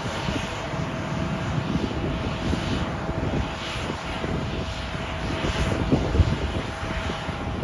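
Airliner engines running, a steady rushing roar with a constant whine and a gusty low rumble underneath.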